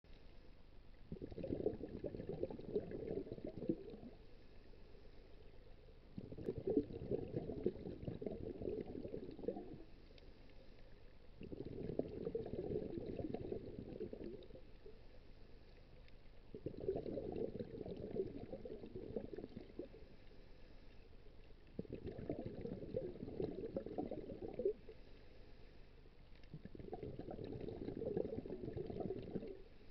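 Scuba regulator breathing heard underwater: six rhythmic bursts of exhaled bubbles, each about three seconds long and coming every five seconds or so, with quieter gaps between breaths.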